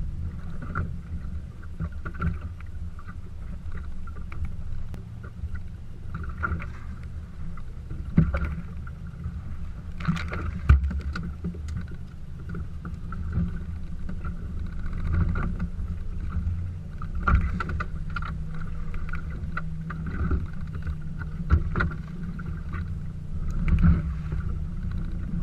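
Steady low rumble of wind and choppy water against the hull of a drifting fishing boat, with a few sharp knocks on the deck, the loudest about eight and eleven seconds in.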